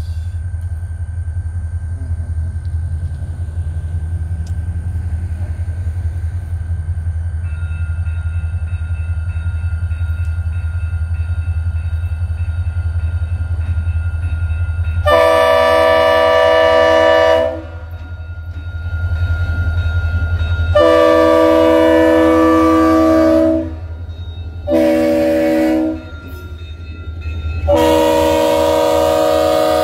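Diesel locomotive running light, its engine giving a steady low rumble as it approaches, then sounding its multi-note horn four times, long, long, short, long: the standard grade-crossing signal. The last long blast is still sounding at the end.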